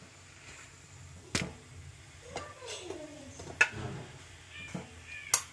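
A spoon clinking against steel kitchen dishes while green chutney is spooned out, three sharp clinks about two seconds apart, the last the loudest, with faint voices between them.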